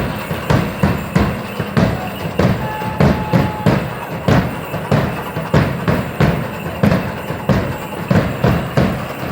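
Danza drumming: drums beating a steady, fast, evenly repeating rhythm.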